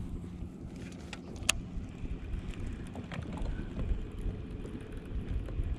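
Low rumble of wind on the microphone over a small fishing boat, with a faint steady hum. A single sharp click about one and a half seconds in, with a few fainter ticks after.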